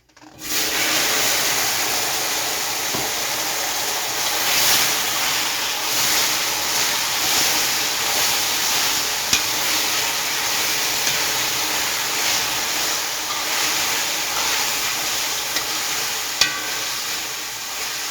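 Seasoned chicken searing in caramelized burnt sugar in a hot pot: a loud, steady sizzle that starts suddenly just after the start. A few sharp clicks of a spoon stirring sound through it.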